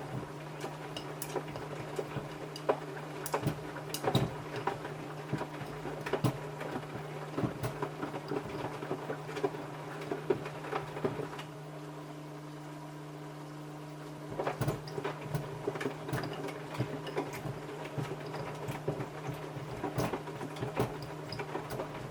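Samsung washing machine running a wash with trainers tumbling in the drum: a steady motor hum with irregular knocks and rattles as the shoes hit the drum. The knocking stops for about three seconds midway while the hum goes on, then starts again.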